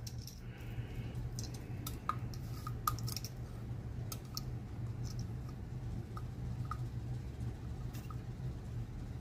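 Faint, scattered small clicks of a steel digital caliper being handled and slid open for a measurement, over a low steady hum.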